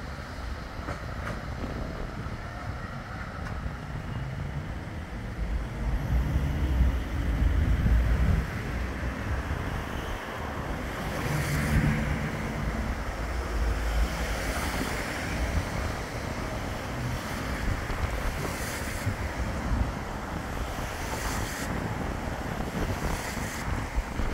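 A Bombardier Flexity 2 tram pulling away and fading into the distance, with a faint motor whine over the first few seconds. After that, wind buffets the microphone in low rumbling gusts.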